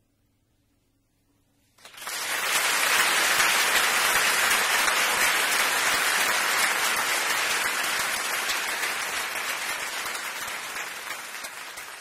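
Near silence for about two seconds, then an audience suddenly breaks into dense applause that slowly dies away near the end.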